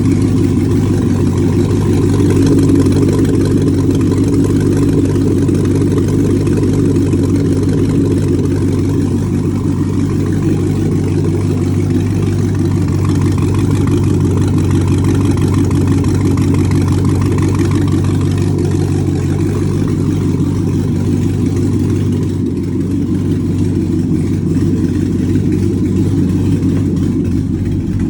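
2008 Corvette Z06's 7.0-litre LS7 V8 running steadily.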